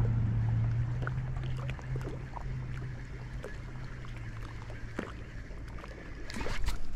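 A motor's steady low hum fades away over the first few seconds, with faint scattered clicks and a short rustle near the end.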